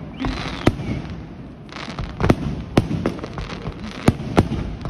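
Fireworks going off: a string of sharp bangs, about eight in under five seconds, unevenly spaced, with hissing between some of them.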